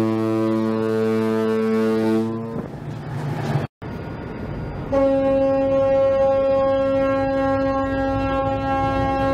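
Two Washington State Ferries ship horn blasts. The Elwha's low, deep horn holds steady and stops about two and a half seconds in. After a short stretch of background noise, the Chetzemoka's higher-pitched horn starts about five seconds in and holds steady.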